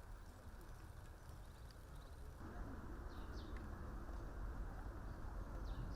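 Rural outdoor ambience: a steady low rumble and hiss that grows louder about two seconds in, with a few faint bird chirps.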